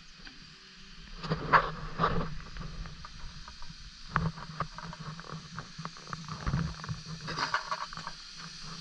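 A rubbish truck's diesel engine running with a steady low hum as the truck comes slowly up the street. Irregular knocks and clatters sound over it, the loudest about a second and a half in and again near the end.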